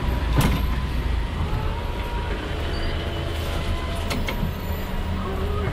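Minibus engine running, heard from inside the cabin as a steady low rumble, with a sharp click about half a second in and another about four seconds in.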